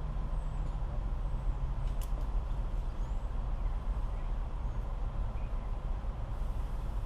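A steady low engine rumble, like a large motor idling, with a brief click about two seconds in.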